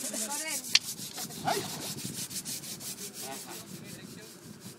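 An elephant's hide being scrubbed by a mahout in the river: rapid, regular rasping strokes against the rough skin. A single sharp click just under a second in.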